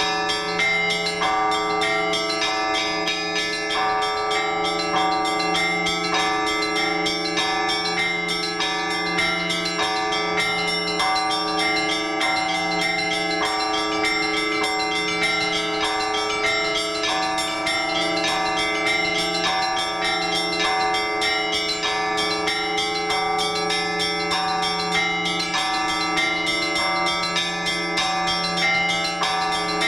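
Russian Orthodox church bells rung together in a trezvon: small bells struck rapidly in a repeating pattern over a lower bell sounding in a steady beat, all ringing on without a break.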